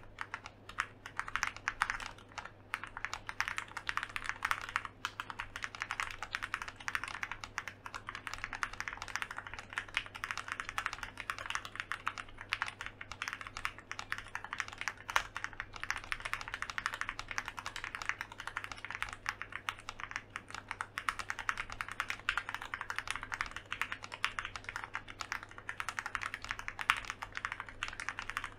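Continuous typing on an Owlab Spring mechanical keyboard with lubed Gateron Black Ink V1 linear switches, a polycarbonate plate, case foam and ePBT keycaps: a steady, dense stream of keystrokes with an occasional louder key strike.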